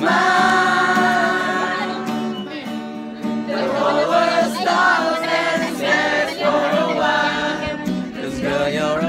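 A group of people singing together along to a strummed acoustic guitar.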